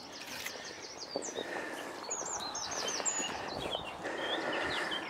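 Songbirds singing: several runs of quick, high, falling chirps repeated in fast series, with other short calls in between.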